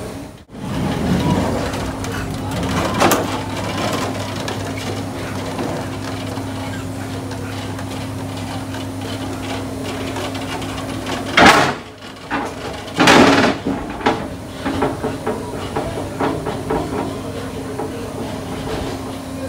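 Steady factory machinery hum with one constant tone. Two loud, sudden noises stand out about eleven and thirteen seconds in.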